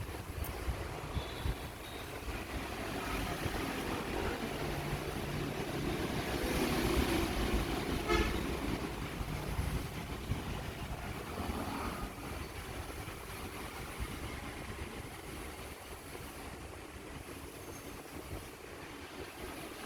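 Road traffic noise, with vehicle engines passing by. It swells to its loudest about six to eight seconds in and then slowly fades.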